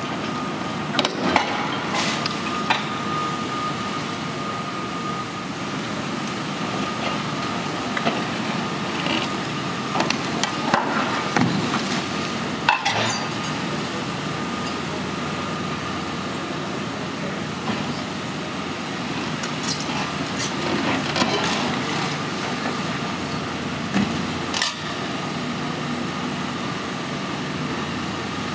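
Long-reach demolition excavator running steadily, with a thin steady whine, as its hydraulic crusher jaw breaks up a concrete building. Sharp cracks and knocks of snapping concrete and falling rubble come in clusters, about a second in, around ten to thirteen seconds in, and again around twenty-one and twenty-five seconds in.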